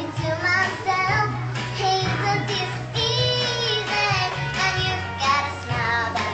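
A young girl singing a song over backing music with a steady low bass line.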